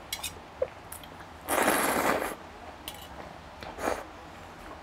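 Loud slurp of thick kalguksu noodles, close on a clip-on microphone, about a second and a half in and lasting under a second. A shorter sip of broth from a small metal bowl follows near the end, with small mouth and chopstick clicks in between.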